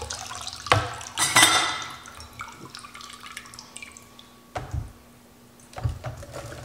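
Brine splashing and dripping through a metal mesh strainer of fermented peppers, with a louder pour about a second in and a few sharp knocks of the strainer against the containers.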